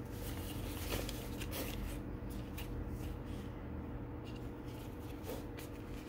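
Soft rustling and light handling as a paper instruction booklet is pulled out of a nylon sling bag and opened, with a few faint clicks. A steady low hum runs underneath.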